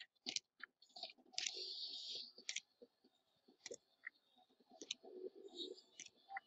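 Faint clicks and short rustles of trading cards and their plastic sleeves and wrappers being handled, with one longer scraping rustle about one and a half seconds in.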